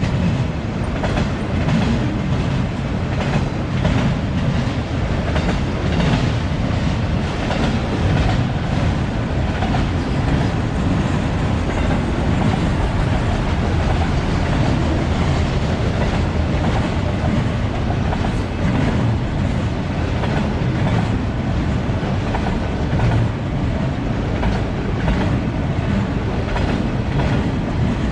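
BNSF freight train of enclosed autorack cars rolling past, with a steady low rumble and frequent wheel clacks over the rail joints.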